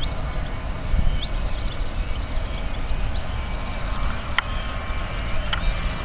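Boeing 737-800's CFM56-7B turbofan engines at takeoff thrust, heard from a distance as a steady rumbling roar with faint high whine tones.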